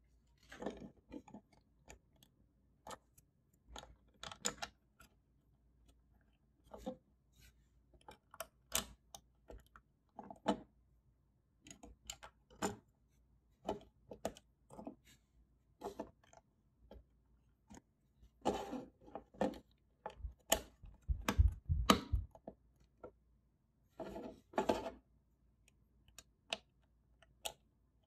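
Plastic Lego bricks handled and pressed together: irregular small clicks and taps, with a denser run of heavier knocks about two-thirds of the way through.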